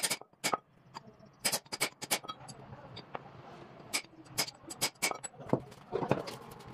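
Hammer blows on a steel drift seated in a valve seat of a Mercedes cylinder head, sharp metallic strikes at an uneven pace, several in quick succession about a second and a half in.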